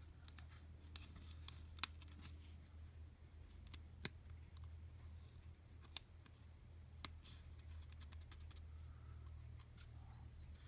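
Faint scattered clicks and scratches of fingers handling the parts inside an opened Chromebook laptop (cables, Wi-Fi card, board), the sharpest click about two seconds in, over a low steady hum.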